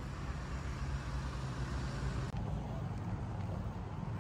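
Steady low rumble of road vehicles.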